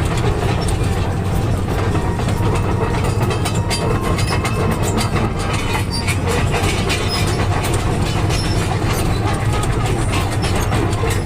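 Kobelco hydraulic excavator's diesel engine running steadily, with rapid clattering and knocking over it.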